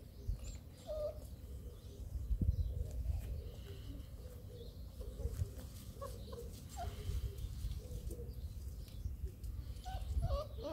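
Bernese Mountain Dog puppies giving short, scattered squeaks and whimpers as they play on and nurse from their mother, over a low rumbling noise.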